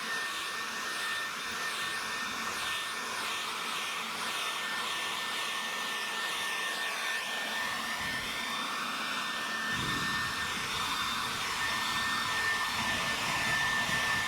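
SnapFresh 20-volt cordless leaf blower running steadily: a rush of air with a constant high whine from its electric fan. A deeper rush joins about ten seconds in and the sound grows a little louder.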